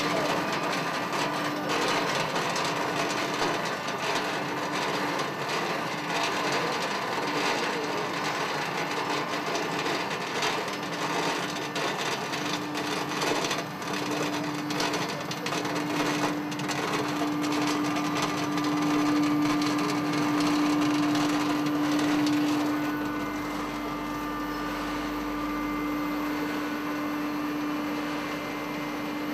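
Date-processing conveyor line running: a steady machine hum under dense, irregular clattering of dates dropping off a plastic modular belt onto stainless steel. The clatter thins out in the last few seconds, leaving mostly the hum.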